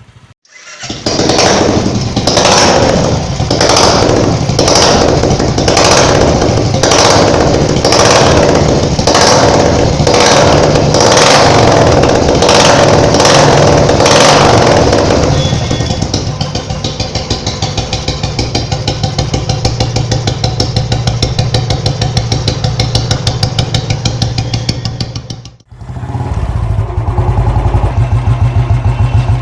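Royal Enfield Bullet single-cylinder engine idling through an aftermarket silencer with its characteristic thump. For the first half a sharp regular beat sounds over it, about three every two seconds. After a brief break near the end the thumping comes back louder and deeper.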